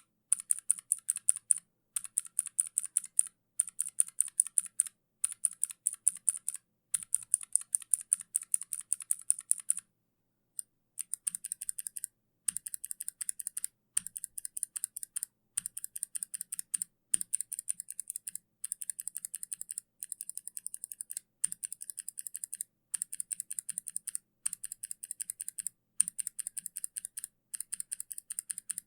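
Kailh mechanical keyboard switches being typed on rapidly, in runs of quick keystrokes broken by short pauses. About ten seconds in, the typing stops briefly and resumes with a thinner, brighter click.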